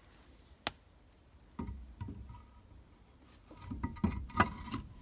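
A steel wheel and tyre being lifted onto the hub and slid over the wheel studs: a sharp click about half a second in, a few dull knocks, then a cluster of clunks with the loudest near the end as the wheel seats.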